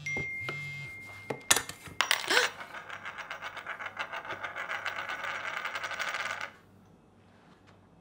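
A gold ring dropped onto a hard floor: two sharp hits, then it spins and wobbles on its edge with a fast rattle for about four seconds before stopping suddenly as it settles.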